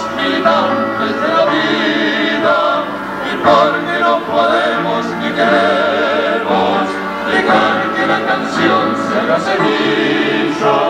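Male vocal quartet singing in harmony, several voices together with a clear vibrato, in phrases a second or two long.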